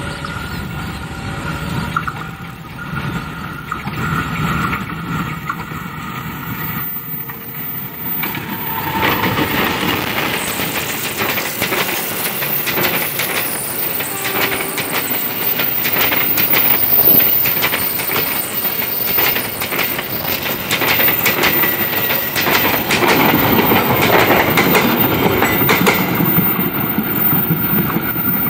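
Passenger train passing, its wheels clattering over the rail joints; it grows louder about nine seconds in and stays loud.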